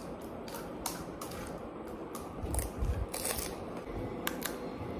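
Crisp fried puri shells crackling and crunching in a string of irregular sharp crackles as they are cracked open with the fingers and chewed.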